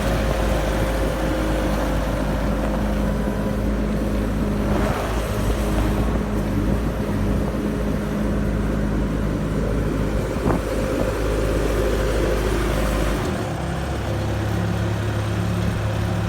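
Bobcat A770 skid-steer loader's diesel engine running steadily, with a steady high tone alongside until about 12 seconds in. There is a sharp click about 10 seconds in, and the engine note changes about 13 seconds in.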